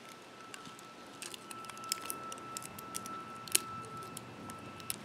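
Packaging of a Flarp noise putty toy being handled and opened: scattered small clicks and crackles, with one sharper click about three and a half seconds in.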